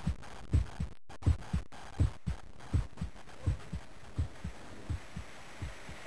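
Recorded human heartbeat: a steady lub-dub double thump about every 0.7 s, roughly 80 beats a minute, growing fainter in the last second or two.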